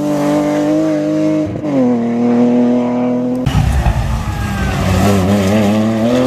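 Rally car engines under hard driving. A BMW E30's engine holds a high, steady note, then drops in pitch about one and a half seconds in. After an abrupt change, a Porsche 911 rally car's engine note wavers up and down.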